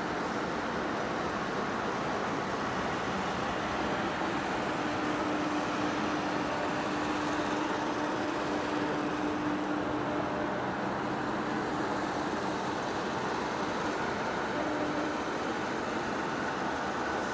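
Heavy-duty lathe running steadily while machining a large shaft, a constant machine noise with a steady hum that comes and goes.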